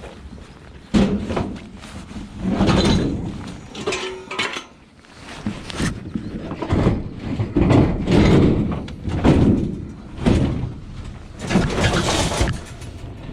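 Scrap being handled: a run of about a dozen irregular knocks, clatters and scrapes.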